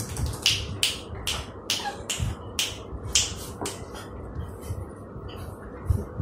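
Puppy's claws scratching, a quick run of short, high scrapes about two to three a second that thins out after about four seconds.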